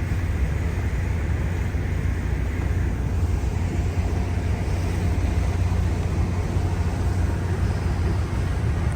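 Fast passenger ferry underway: a steady low rumble with an even rushing noise over it.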